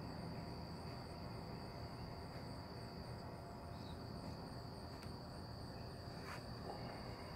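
Insects trilling steadily outdoors: one continuous high trill, with a fainter, higher pulsing call about three times a second above it.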